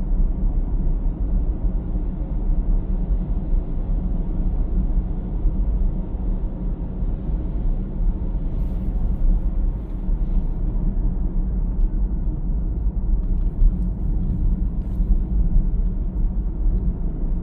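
Steady low road and tyre rumble inside the cabin of a Tesla Model S Plaid cruising at about 40 mph. There is no engine note, since the car is electric.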